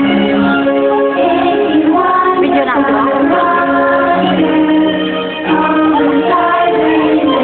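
Fireworks-show music with a woman singing a slow melody over the backing, with no firework bangs standing out.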